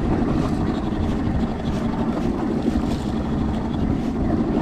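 Boat's outboard motor running steadily, a low hum under steady wind and water noise.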